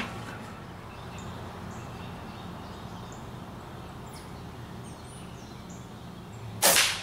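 A single sharp report from a Crosman GuideHawk .22 air rifle being fired near the end, over steady outdoor background with faint bird chirps.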